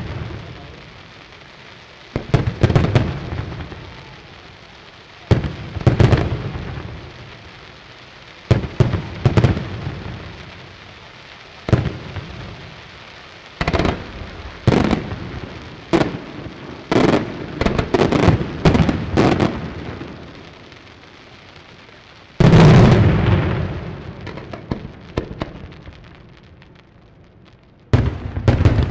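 Aerial firework shells bursting: a series of sharp bangs, each followed by a long rolling rumble, coming every two or three seconds. A quicker flurry of bangs comes in the middle, and the loudest burst, with the longest rumble, comes about two-thirds of the way through.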